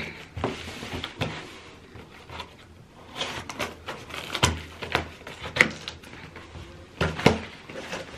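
Scissors slitting packing tape on a cardboard shipping box, with small scattered snips and scrapes, then the cardboard flaps being pulled open with several sharp knocks and rustles in the second half.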